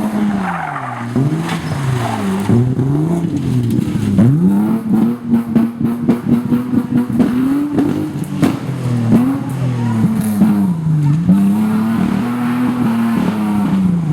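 BMW E30 rally car engine revving hard, its pitch climbing and dropping again and again as the throttle is worked through a drift, with tyres skidding. There is a quick run of sharp crackles in the middle.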